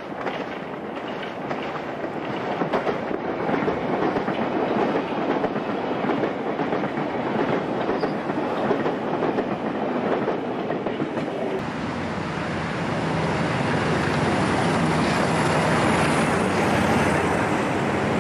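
London Underground 1983 tube stock train running on the rails, getting louder over the first few seconds, with a faint high whine near the end.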